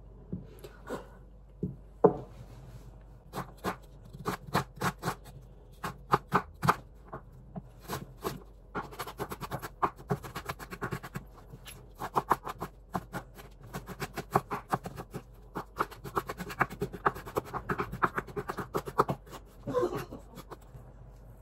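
Knife chopping food on a cutting board: sharp, separate taps, scattered at first, then quick runs of several a second from about nine seconds in, with short pauses.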